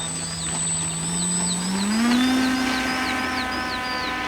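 Electric RC plane motor and propeller whining at a steady pitch, then throttled up about two seconds in to a higher steady pitch for the takeoff run. Birds chirp in the background with short falling calls.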